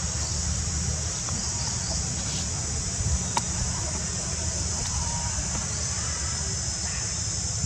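Steady high-pitched insect chorus, a continuous shrill buzz of crickets or cicadas, over a low outdoor rumble, with a few faint chirps and one sharp click about three and a half seconds in.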